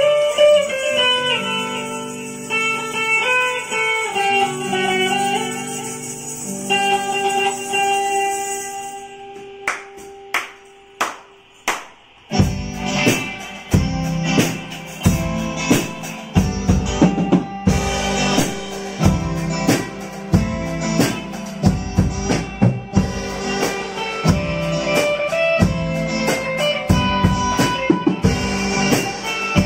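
A Stratocaster-style electric guitar plays a melody alone, followed by a few sharp drum hits about ten seconds in. From about twelve seconds a full band joins with a steady beat: drum kit and electric guitars.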